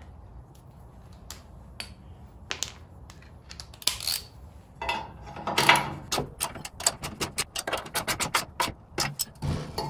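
Ratcheting wrench clicking as a nut is tightened on a steel bumper-bracket bolt: a few scattered clicks at first, then a quick run of clicks, several a second, in the second half.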